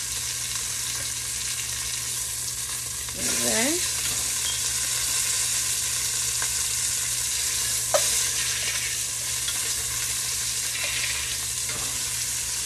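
Beef short ribs sizzling in hot oil in an enamelled cast-iron Dutch oven as they are seared and turned with tongs. The sizzle grows louder about three seconds in, and a single sharp click comes about eight seconds in.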